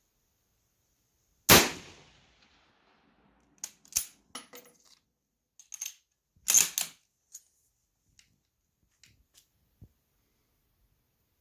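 A single shot from a 1915 Sestroretsk Mosin-Nagant rifle about one and a half seconds in, ringing off briefly. It is followed by a series of sharp metallic clicks and clacks, the loudest a double clack a few seconds later, as the bolt is worked to eject the spent case and chamber the next round.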